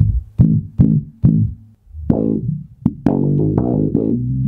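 Electric bass played through a filter pedal and bass amp: separate plucked notes, each opening bright and closing darker as it fades under the sweeping filter, then a quicker run of repeated notes about three seconds in.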